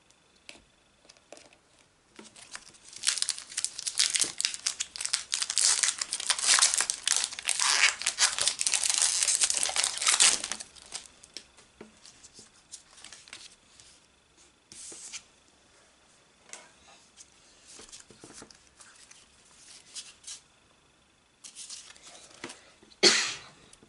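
Foil Pokémon TCG booster pack wrapper being crinkled and torn open, a dense crinkling that lasts about eight seconds. After it come soft ticks and rustles of the cards being handled, and a short sharp rustle near the end.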